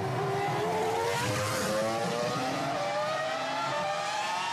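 Formula 1 race car engine sound effect laid over the diecast car's run: a high-pitched, multi-toned engine whine that climbs steadily in pitch as the car accelerates.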